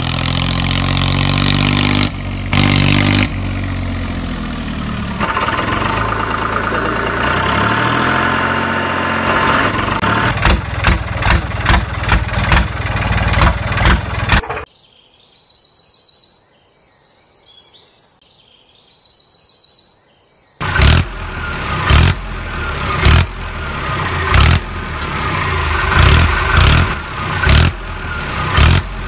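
Tractor engine running steadily, then chugging in rapid rhythmic pulses as it works under load. It cuts out for several seconds in the middle, leaving faint high chirping, then comes back with hard rhythmic revving.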